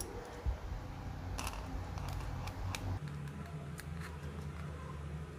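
A few short, sharp clicks of an iPhone 4S's buttons being pressed, spread out over a second or so apart, over a low steady hum.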